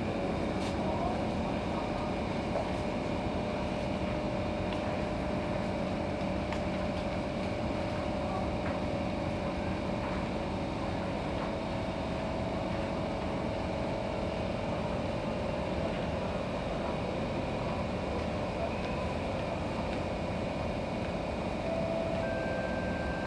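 Steady hum and hiss of an SMRT C151 metro train standing at a station platform with its doors open, its onboard equipment running. A high steady tone starts near the end.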